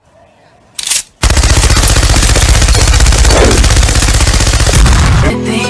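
Rapid machine-gun fire, a loud, dense rattle of shots lasting about four seconds, after a short hiss about a second in; music comes in near the end.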